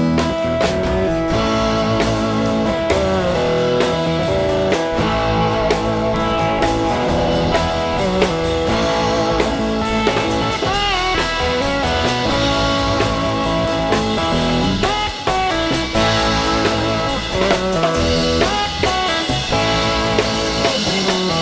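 Live rock band playing an instrumental passage: electric guitar over bass and drum kit, with sliding, bent notes in the guitar line.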